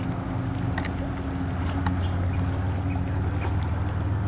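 Personal watercraft (jet ski) engine droning steadily as it speeds across the river, with a few faint clicks over it.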